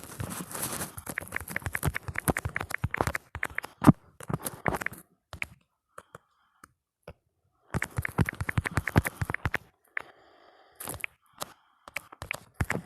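Rapid keyboard typing clicks in two runs, with a pause of a few seconds between them.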